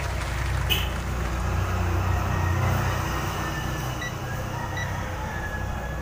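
A low, steady vehicle-engine rumble that swells a little about two seconds in and eases off later.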